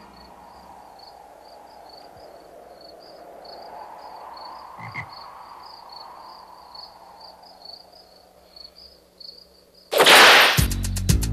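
Quiet scene ambience with a faint high chirp repeating about three times a second and a low swell of noise rising and falling, with a short thump about five seconds in. Near the end a sudden loud crash-like hit sounds, and rhythmic music starts right after it.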